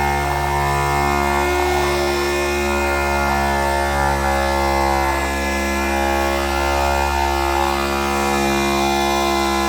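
Background music with a steady bass line, over a steady machine hum.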